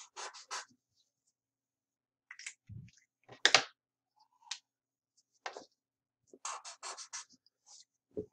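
Felt-tip marker scratching on paper in short quick strokes, drawing small star marks, in several separate groups, with a louder knock about three and a half seconds in.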